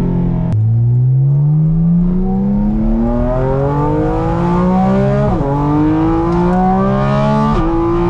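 Porsche 718 GT4 RS flat-six with aftermarket headers and muffler, heard from inside the cabin under hard acceleration. The pitch rises steadily through one gear and drops at a quick upshift about five seconds in. It climbs again and shifts up once more near the end.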